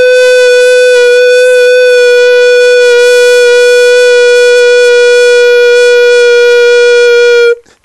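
A man's voice holding one long, loud, high note for about seven seconds, sliding up at the start and held steady until it cuts off abruptly.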